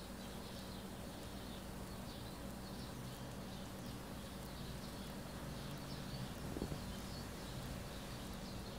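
Steady, faint hiss of light rain coming through an open door, with soft high chirps repeating every half second or so and a single soft knock about six and a half seconds in.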